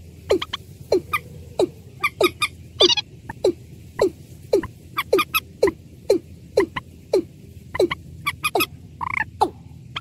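Watercock (ayam-ayaman) calls: a slow, repeated series of short notes, each dropping sharply in pitch, about two a second. A higher, different call cuts in about three seconds in and again near the end.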